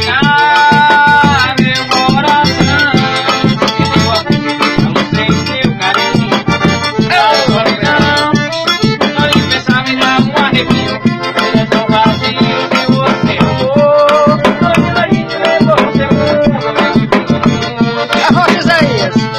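Accordion (sanfona) playing a lively melody over steady drum and percussion accompaniment.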